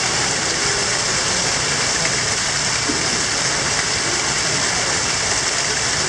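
Greenhouse waterfall cascading down a stone wall into a pool: a steady, even rush of falling water.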